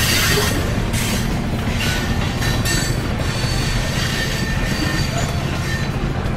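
Train wheels rolling over rails: a steady, loud rumble with faint high squealing tones and a hiss that swells now and then.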